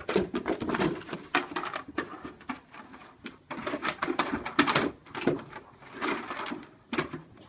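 A Labrador scrabbling at a frisbee lying flat on a wooden deck: irregular scrapes and clatters of claws and plastic on the boards, in clusters, with low vocal noises from the dog in between.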